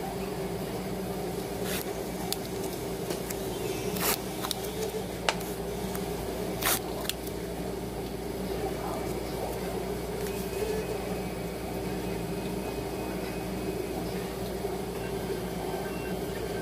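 Steady low machine hum, with a few short clicks and rustles of handling in the first seven seconds.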